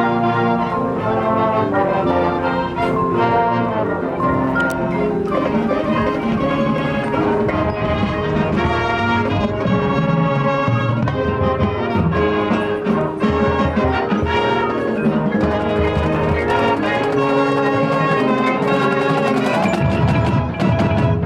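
High school marching band playing its field show: brass chords and melody with mallet percussion, and heavier low drumming coming in near the end.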